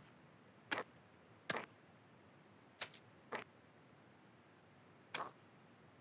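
Five sharp, short clicks at irregular intervals over a faint steady hiss.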